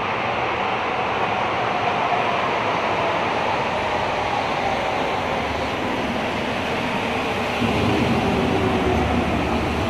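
Metro train arriving at an underground station: a steady rush of running noise with a whine that slowly falls in pitch as the train slows, growing louder with a deeper rumble about three-quarters of the way in as the train comes alongside the platform.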